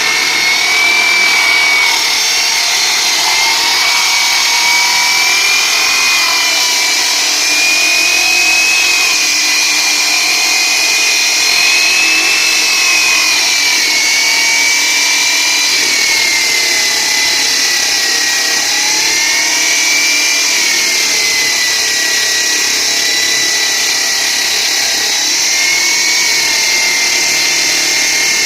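Power saw with a cutting blade running continuously through a concrete slab. It makes a steady high whine over a gritty hiss, and the pitch wavers slightly up and down as the blade's load changes.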